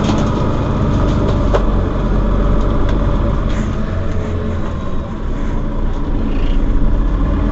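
Mercedes-Benz Citaro Facelift city bus engine running with a steady low rumble, with a couple of short knocks near the start.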